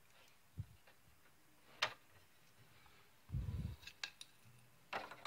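Fluorescent tubes being handled and fitted into a T5 grow light fixture's sockets: a few faint scattered clicks and taps, with a duller low thump about three and a half seconds in.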